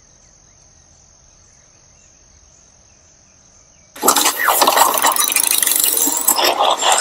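Crickets chirring in a steady high trill. About four seconds in, a loud rushing noise effect cuts in suddenly and drowns them out.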